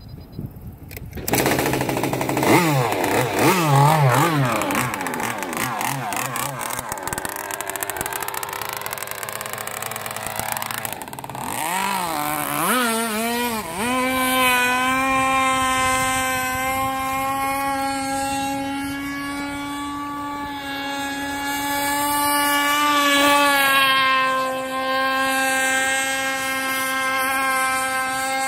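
Two-stroke 30.5 cc gas engine of an RC speedboat running on the water. Its revs rise and fall unevenly at first, climb sharply about halfway through, then hold a steady high-pitched drone at full speed.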